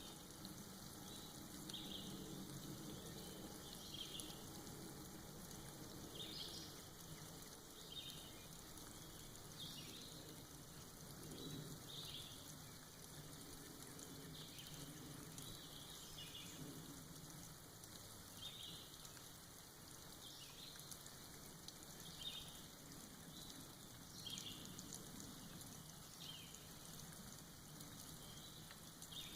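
Soft rain dripping off moss in a forest: a faint, steady patter with short high ticks of drops every second or two.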